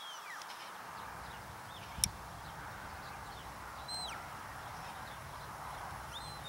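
Shepherd's whistle commands to a working sheepdog: three high whistles, each a held note that then drops away, one near the start, one about four seconds in and one at the end, with a few fainter short falling whistles between. A sharp click about two seconds in.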